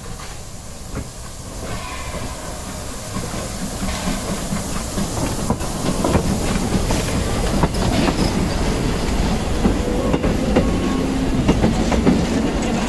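Metre-gauge steam locomotive U 29.101 Krutwig and its open carriages rolling close past, getting louder as they near. The wheels clatter over the rail joints, with some hiss.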